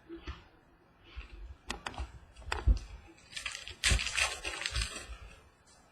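Trading cards and a foil pack being handled: a few sharp clicks and taps, then about a second and a half of crinkly rustling past the middle.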